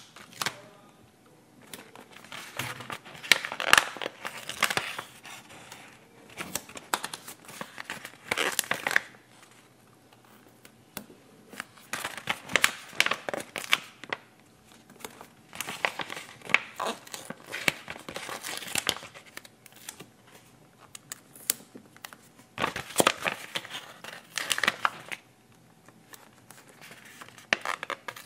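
Stickers being peeled off a glossy sticker sheet and its backing paper handled, a crackly paper crinkling in repeated bursts with short quiet spells between.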